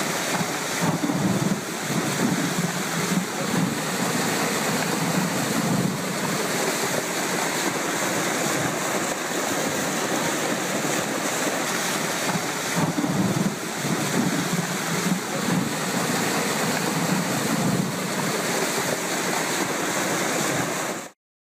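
Loud, steady rushing noise of a flash flood's torrent of water, cutting off abruptly near the end.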